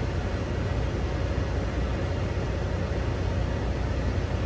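Steady low engine rumble heard inside a semi-truck's cab.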